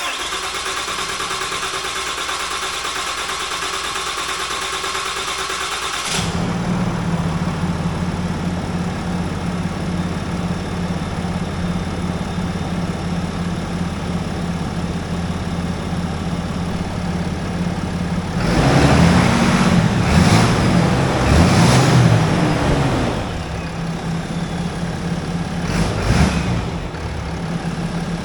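A 2019 Ram 3500's 6.7-litre Cummins common-rail turbo diesel cranks on the starter for about six seconds, then fires and settles into a steady idle. The long crank is the fuel system building rail pressure and refilling the number 1 injector after the intake install. Near the middle the engine note gets louder and rises and falls for a few seconds.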